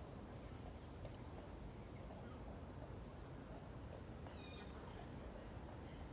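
Great tits giving short, high call notes: a faint chirp about half a second in, then three quick downslurred notes about three seconds in and a sharp high note a second later, over a steady low background noise.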